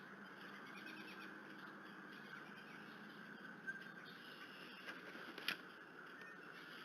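Faint outdoor ambience at a bald eagle nest: a steady low hiss, a quick run of small chirps about a second in, and two sharp clicks, the louder one past the middle.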